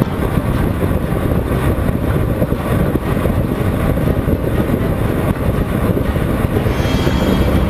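Honda CBR 125R's single-cylinder four-stroke engine running at steady highway speed, mostly buried under a heavy, even rush of wind on the microphone.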